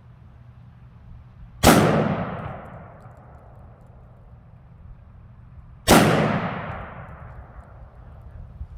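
Two rifle shots from a Smith & Wesson M&P15 Sport II AR-15 in 5.56 NATO, about four seconds apart, each followed by a long echoing tail.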